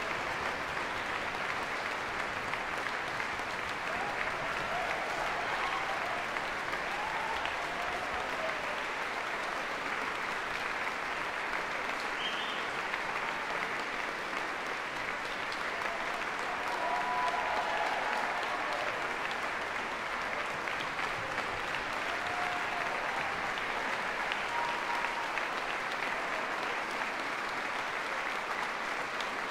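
Concert-hall audience applauding steadily, with a few brief calls rising above the clapping.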